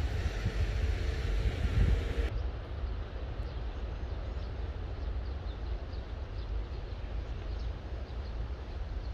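Outdoor ambience: a steady low rumble of distant traffic and wind, louder at first. About two seconds in the recording cuts to a quieter steady hiss with faint, scattered high bird chirps.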